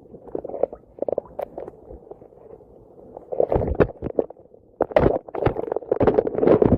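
Water sloshing and gurgling in irregular surges as waves are pushed through dammed-up water, sparse at first and growing busier and louder from about three seconds in.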